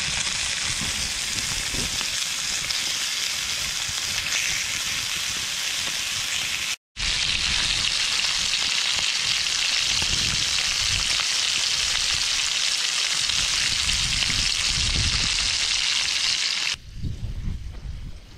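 Food frying in a pan over a campfire: a steady sizzling hiss, broken once by a brief silent gap about seven seconds in, and dropping away to a quieter low rumble near the end.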